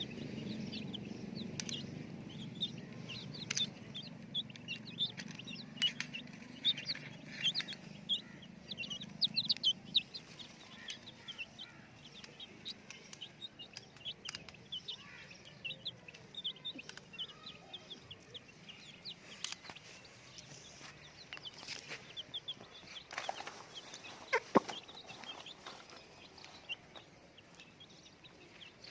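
A group of young chickens peeping: many short, high chirps, overlapping throughout. A low hum fades out over the first ten seconds, and a louder single call stands out about three-quarters of the way through.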